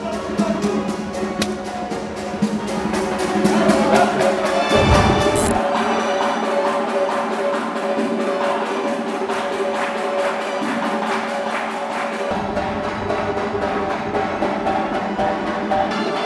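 Caucasian folk dance music: a quick, even beat of sharp knocks over held, steady notes. A brief low rumble comes about five seconds in.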